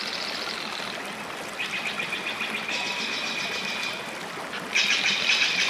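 Outdoor ambience by a reedy pond: high-pitched, rapidly pulsed buzzing chirrs come in three bouts of a second or two each over a steady hiss, and the last bout, near the end, is the loudest.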